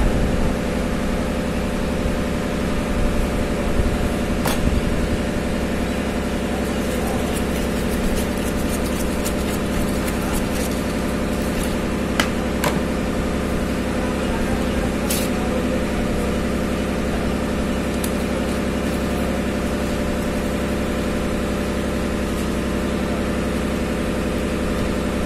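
A steady mechanical drone, like an engine or motor running at idle, holding several level pitches without change. A few faint clicks and knocks sound over it.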